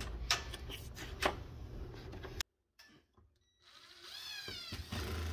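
Knocks and handling noise for about two seconds, then, after a sudden break, a cordless drill driver runs up and back down in pitch while driving a screw into a ceiling drywall patch.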